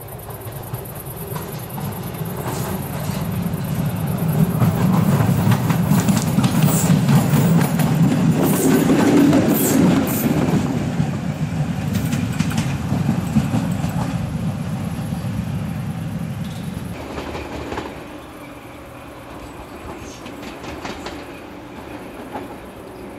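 LEW electric mining locomotive hauling a coal train past at close range: a low rumble with the clatter of wheels over rail joints builds, is loudest in the middle with a few brief high squeals, then drops away about three quarters of the way through as the train moves off.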